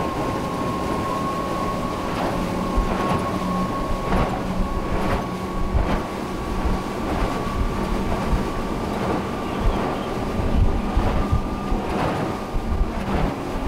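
A catamaran's outboard engines running at full speed, with a steady whine that creeps up in pitch as the boat accelerates past 50 mph. Underneath is a heavy rumble of hull and water, with thuds about once a second as the hull hits the chop.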